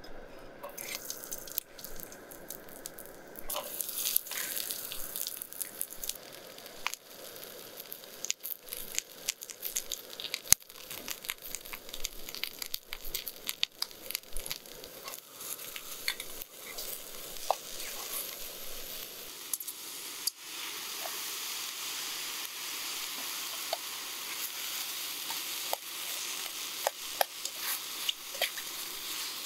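Oil sizzling in a small camping pan over a gas stove as garlic and then chunks of mushroom and cabbage fry, with many light clicks and taps as the pieces go in and are moved about. From about two-thirds of the way through the sizzle becomes denser and steadier as the pan fills and the food is stirred with a spatula.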